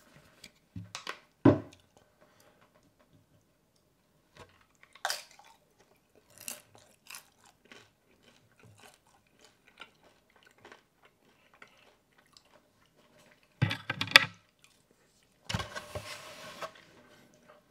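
Close tabletop handling sounds: sparse clicks and knocks, with a louder crackling of the styrofoam takeout clamshell and its lid near the end.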